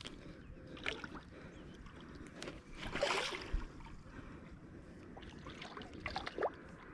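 Water sloshing at the bank as a hooked striped bass is played in close, with one short splash about three seconds in and a few small clicks.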